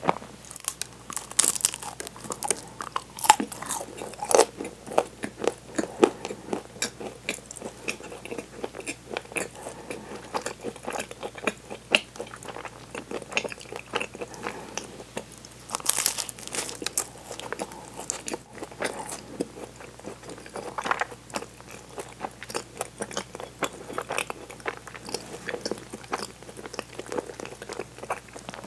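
Close-miked biting and chewing of a flaky chocolate-coated pastry ring, its crisp chocolate shell and pastry layers crackling and crunching. Louder crunchy bites stand out a few times, most clearly about 16 seconds in.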